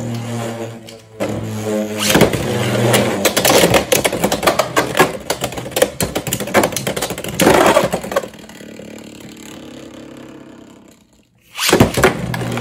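Beyblade X spinning tops, Dran Buster 1-60F and Leon Crest 7-60GN, whirring and clashing in a plastic stadium: a steady humming whir with many sharp plastic and metal clacks as they strike each other and the rail. The clashing stops about eight seconds in, one top whirs on more quietly and dies out at about eleven seconds, and a fresh top starts spinning loudly just before the end.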